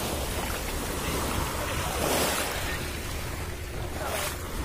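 Small sea waves washing onto a pebble shore as a steady surf hiss, with wind rumbling on the microphone.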